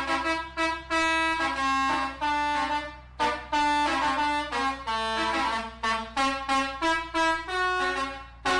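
Bus telolet horn: a bank of multi-tone air horns playing a quick tune of short toots at changing pitches, over a steady low hum.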